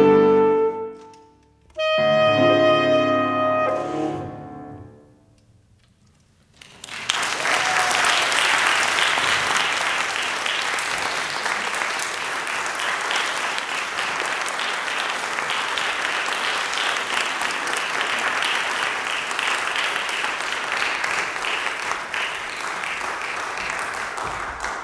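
An alto saxophone and piano close a piece: a held note, then a final chord about two seconds in that rings away. After a short silence the audience claps steadily for the rest of the time.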